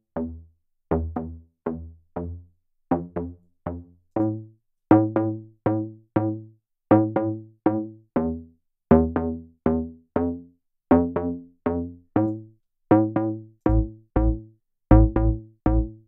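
Electronic bass loop from a Serum software synth: short, plucky synth bass notes with fast decays in a repeating pattern, a few notes a second, layered over a sine sub bass. Deeper sub-bass notes come in during the last few seconds.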